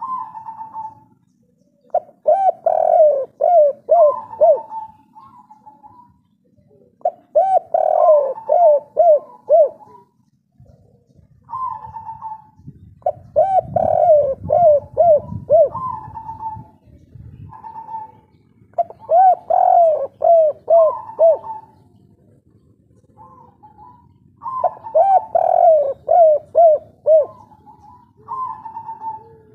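Spotted dove (tekukur) singing its 'kuk 3' cooing song: about five bouts, each a quick run of repeated rolling coo notes, spaced five to six seconds apart, with softer single coos in between.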